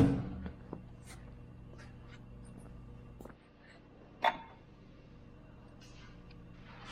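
Light handling knocks and clicks, with a sharp knock at the start and a sharper click about four seconds in, over a steady low hum that cuts off about three and a half seconds in.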